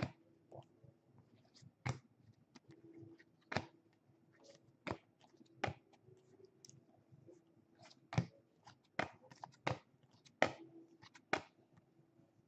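Baseball cards being flipped through by hand, one after another: a string of sharp, irregular snaps and clicks of card stock, with a faint low hum at times underneath.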